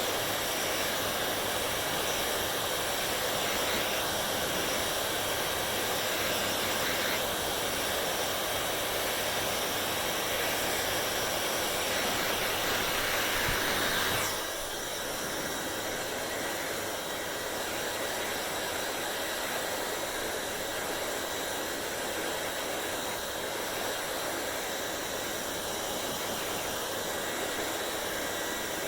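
Hair dryer blowing with a steady whooshing hiss and a faint whine. Just past halfway its sound steps down to a slightly quieter, lighter rush and stays there.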